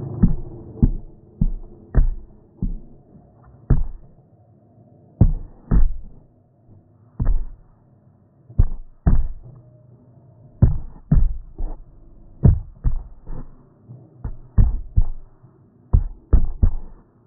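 About twenty dull thumps at uneven intervals, some in quick pairs or threes, over a faint steady hum: the phone's microphone being knocked while the phone is handled.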